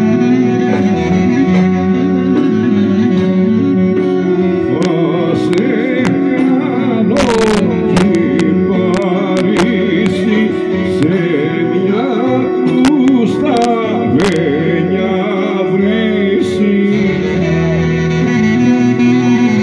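Loud folk dance music with singing over string instruments, a wavering melody line above a steady low drone. There is a brief sharp knock about seven seconds in.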